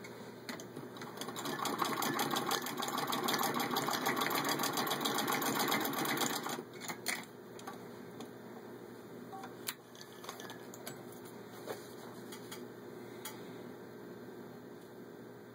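Antique 1919 Singer 66-1 treadle sewing machine, turned by hand crank, stitching through six layers of denim: a steady, rapid mechanical clatter of needle and feed lasting about five seconds, then stopping suddenly. A few light clicks and handling noises follow as the denim is pulled out.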